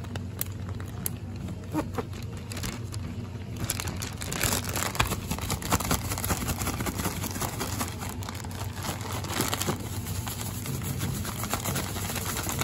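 Clear plastic zip-top bag crinkling and rustling as it is shaken to coat pieces of bluefish in seasoned fish-fry breading. The shaking comes in uneven spells, busiest about four to six seconds in and again near ten seconds.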